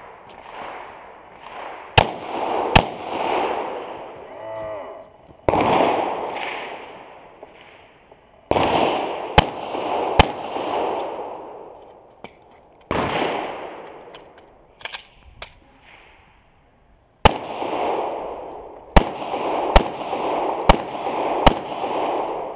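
Pistol shots fired in a USPSA stage, about a dozen spread out singly and in quick pairs, with pauses between groups as the shooter moves between positions, and a fast string of four shots near the end.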